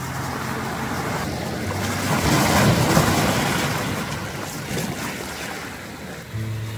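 A sea wave breaking on the beach: the surf swells to a peak about two and a half seconds in, then washes out and fades.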